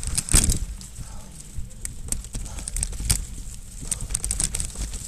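Mountain bike rolling over roots and leaf litter on a dirt trail: the bike rattling and clattering, with sharp knocks as the wheels hit roots, the loudest just after the start and about three seconds in, over a steady low rumble.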